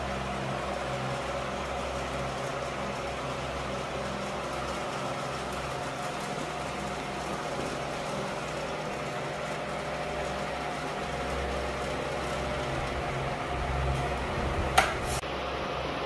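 Kijeonsa KJF-series three-legged portable floor fan running steadily on test: the motor hums under an even rush of air from the blades. Near the end there is a sharp click.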